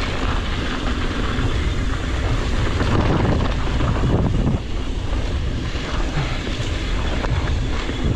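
Wind rushing over an action camera's microphone, mixed with the tyre noise and rattling of an Ibis Ripmo full-suspension mountain bike riding fast down a dirt trail. The rattling is densest about three to four seconds in, and the noise eases slightly about four and a half seconds in.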